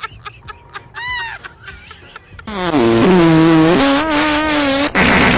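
A loud, buzzing prank fart sound that starts suddenly about two and a half seconds in and lasts about two and a half seconds, its pitch stepping down partway through. A short hissing burst follows near the end.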